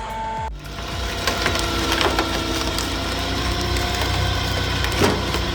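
A firewood splitting machine working through logs: wood cracking and splintering over the machine's steady running, with repeated sharp cracks and the loudest about five seconds in. Background music plays until about half a second in.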